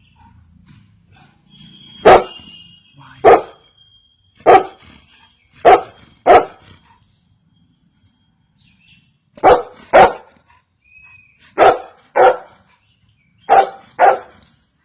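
Golden retriever barking: about eleven short, sharp barks, often in quick pairs, with a pause of about three seconds midway.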